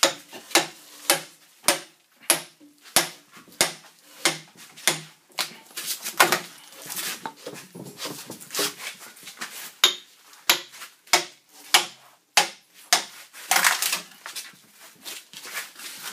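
Small axe chopping into the side of a softwood log: a long series of sharp chops, roughly two a second, with a short break midway. This is juggling, knocking out the wood between circular-saw kerfs down to the chalk line.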